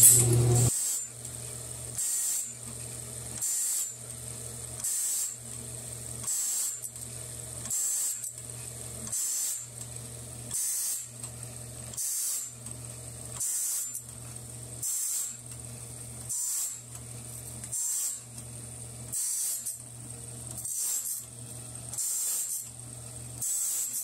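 An automatic bandsaw-blade sharpener grinding a sawmill band blade. Its motor hums while the grinding wheel takes a short, hissing grind at one tooth after another, about every one and a half seconds.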